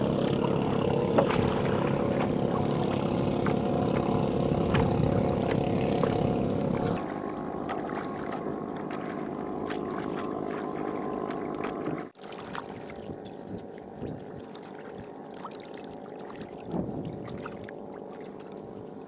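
A motorboat engine runs with a steady hum that drops in level after about seven seconds. Later, water splashes and sloshes as sweet potatoes are scrubbed by hand in a metal pot of seawater.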